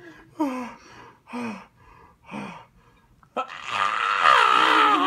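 A toddler's wordless vocal sounds: three short, falling grunts, then about three seconds in a loud, drawn-out excited squeal.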